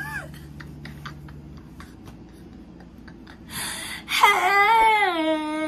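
A woman's voice: a short vocal sound at the start, then a quiet stretch, then from about four seconds in a breathy burst and a long sung note that slides down and holds.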